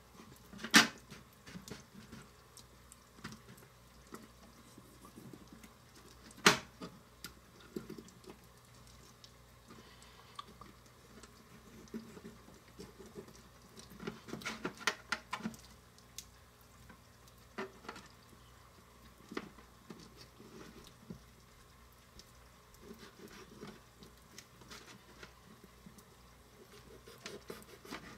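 Small knife cutting and scraping raw quail breast off the bone on a cutting board: soft, wet handling sounds with scattered light clicks. Two sharper clicks stand out, about a second in and about six seconds in.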